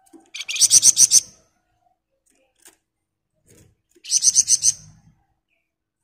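Caged flamboyan songbird giving two short bursts of rapid, high-pitched trilled notes, about eight quick notes each, the second burst some three seconds after the first. Low thuds and fluttering sound under each burst as the bird moves about its bamboo cage.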